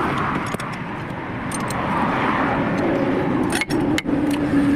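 Steady running noise of a motor vehicle, with light metal clinks of spanners working on a car's wheel hub.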